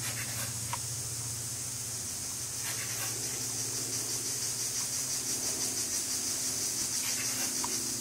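Steady high-pitched buzzing of a forest insect chorus, pulsing slightly, with a low hum that fades out about two seconds in and a few faint short chirps.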